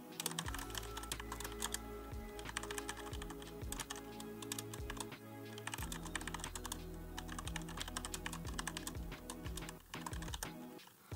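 Typing on a computer keyboard: a rapid, uneven run of keystroke clicks with a brief pause near the end, over soft background music with steady low notes.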